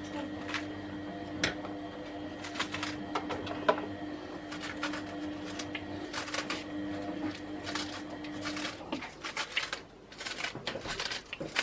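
Crisp lettuce leaves being torn and snapped by hand into a plastic bowl, a run of irregular crackling snaps. A steady low hum sits underneath and stops about three-quarters of the way through.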